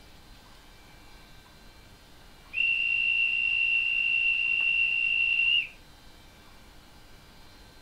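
Digital sound decoder (ESU LokSound V5) in an H0 Roco ETA 515 model railcar playing its recorded departure whistle through the model's speaker. It is one steady, high whistle, starting about two and a half seconds in and lasting about three seconds.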